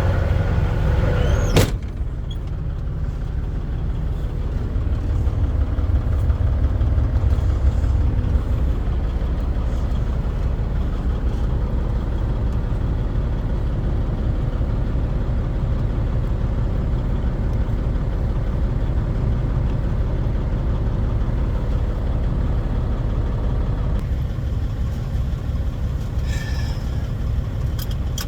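Semi-truck's diesel engine running, a steady low rumble with an even pulse. A sharp click comes about two seconds in.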